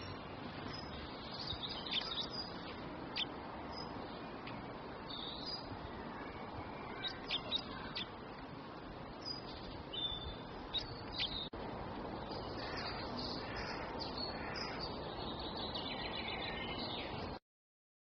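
Small songbirds chirping and calling in short, scattered notes over a steady background hiss; the sound cuts off suddenly near the end.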